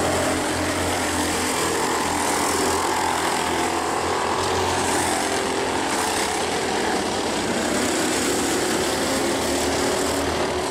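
Go-kart engines running at racing speed, their pitch rising and falling as the karts accelerate and ease off.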